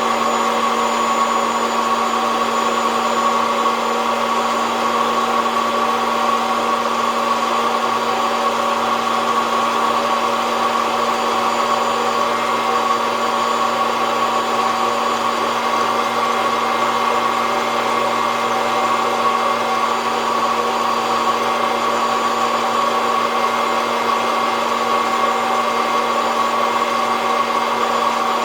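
SOUYI SY-121N hot-air coffee roaster running steadily, its fan and heater blowing hot air through the beans with an even hum and whine.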